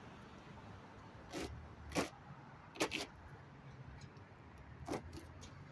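Red onion being chopped with a knife and put into a jar: four sharp knocks at uneven intervals over a low steady hum.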